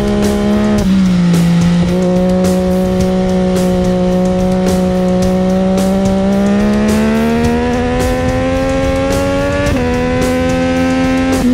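Sport motorcycle engine heard from onboard at speed, holding a steady note, then rising steadily and dropping sharply at an upshift near the end before climbing again. Wind buffets the microphone.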